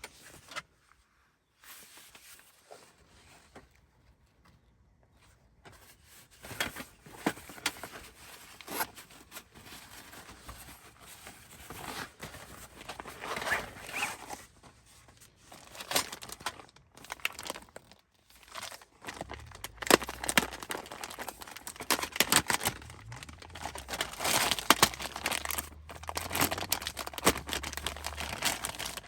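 Crinkling and rustling of something being handled, with many scattered clicks and crackles that grow denser and louder in the last third.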